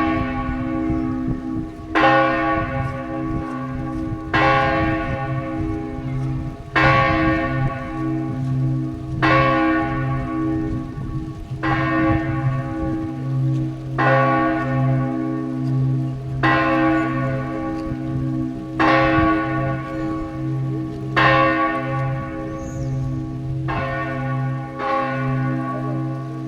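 Basilica church bells ringing the noon peal: a bell strikes about every two and a half seconds, each stroke ringing on into the next, over the steady hum of a deep bell. It sounds like two bells ringing at the same time.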